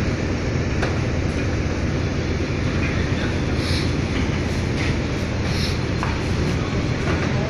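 Steady low rumble of a car ferry's diesel engines heard from on deck, with a few faint clicks over it.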